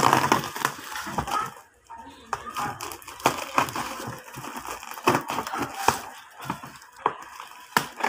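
Scissors snipping through plastic bubble wrap around a cardboard box, the wrap crinkling and crackling as it is cut and handled, in a run of irregular sharp snips.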